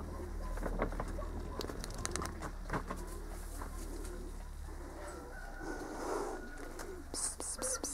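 A bird cooing, over a steady low rumble and scattered short clicks.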